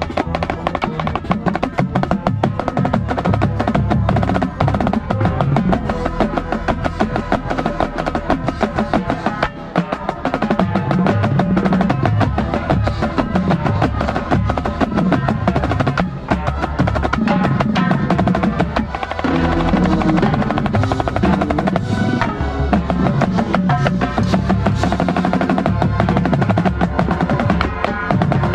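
Marching snare drum played close to the microphone with fast strokes and rolls, over a drum corps ensemble of brass and percussion playing the show music.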